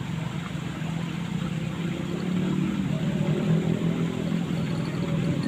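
An engine running steadily with a low hum, its pitch wavering slightly and growing a little louder over the few seconds.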